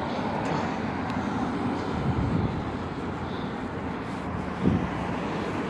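Road traffic on a residential street: the steady rush of passing cars' tyres and engines, with a short thump near the end.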